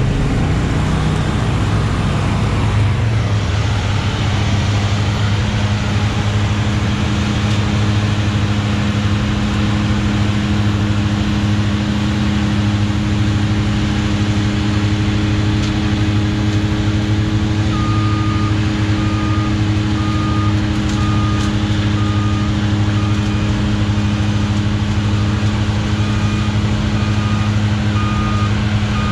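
Tractor engine running at a steady speed. About two-thirds of the way in, a backup alarm starts beeping about once a second, pauses briefly and resumes.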